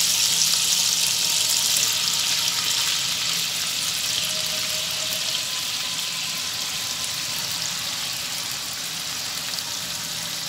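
Marinated chicken breast strips frying in hot oil and butter: a steady sizzle as more pieces are dropped into the pan, easing slightly toward the end.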